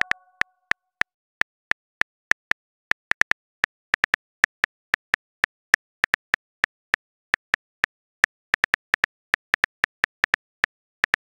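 Smartphone keyboard clicks as a message is typed, one short tap sound per key, irregular and about four a second.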